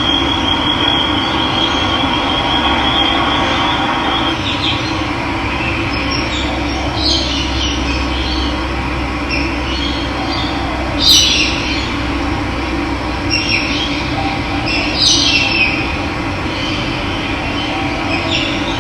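Steady rush of running water with birds calling over it: a high, even trill over the first few seconds, then short chirps at intervals.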